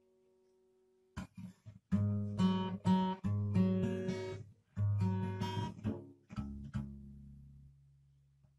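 Steel-string acoustic guitar with a magnetic soundhole pickup, heard through a Sven PS-500 portable speaker: a few short strums, then two runs of ringing chords with a brief break between them, the last chord left to ring and fade.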